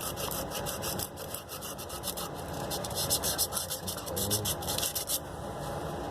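Sandpaper rubbed back and forth on a copper water pipe in quick, even strokes, scouring off paint down to bare metal before soldering. The strokes stop about five seconds in.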